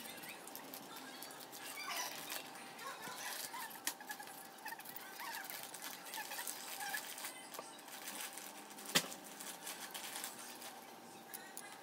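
Kitchen knife peeling and cutting pears by hand: soft scraping with scattered sharp clicks, one loud click about nine seconds in.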